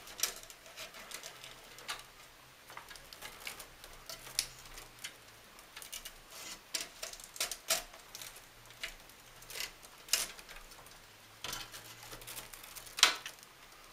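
Irregular clicks, taps and rustling of power-supply cables being handled and pushed through a computer case, with one louder click near the end.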